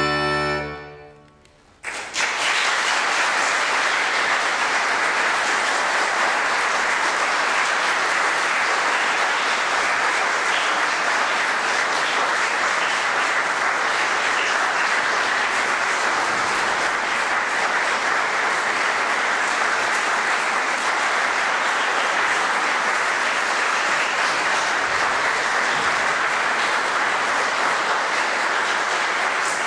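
The last held chord of a chromatic button accordion, cut off under a second in and ringing away, then an audience applauding steadily.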